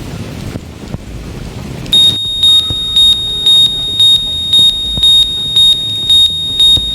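Homemade rain alarm's buzzer sounding: a steady high-pitched tone that swells about twice a second, starting about two seconds in after a rushing noise. The sound signals that the sensor has detected water.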